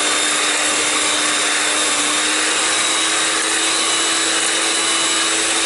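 Electric hand mixer running steadily, its twin beaters whisking raw eggs in a glass bowl.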